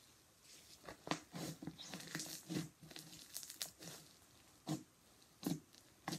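Fluffy slime being stretched, torn and kneaded by hand: irregular soft crackling and tearing. Two sharper pops come near the end.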